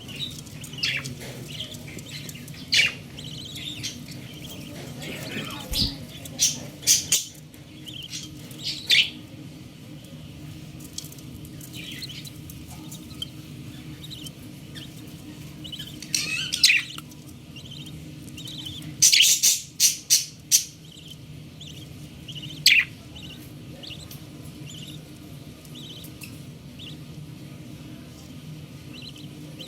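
Baby budgerigar chirping: sharp, loud chirps at irregular intervals, some in quick runs of three or four, with softer twittering between. A steady low hum runs underneath.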